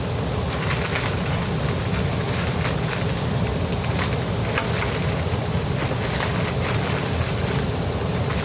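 Plastic bags rustling and crinkling in irregular crackles as a foot pedal is bagged, over the steady low hum of a heater.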